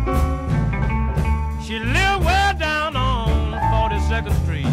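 Electric Chicago blues band playing an instrumental passage between sung verses: a lead electric guitar plays bent notes over a steady bass and drum groove.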